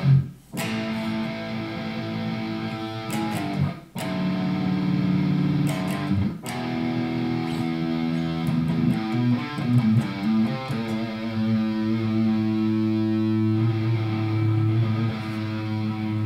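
Squier Sonic Mustang HH electric guitar played through an amp, chords and notes let ring for several seconds at a time. The sound breaks off briefly about half a second in, again near 4 s and near 6.5 s, and the playing picks up again each time.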